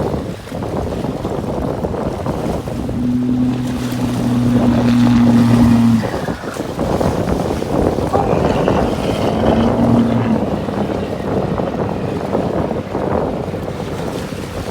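Wind buffeting the microphone in a rough, steady rush. A low, steady motor hum comes in about three seconds in for some three seconds, and again briefly around ten seconds.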